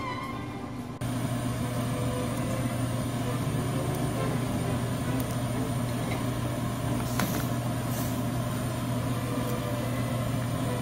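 Pot of soup boiling hard on a gas burner: a steady rushing bubbling with a low hum underneath, starting about a second in. Two brief splashes about two-thirds of the way through as pieces of dough are dropped into the pot.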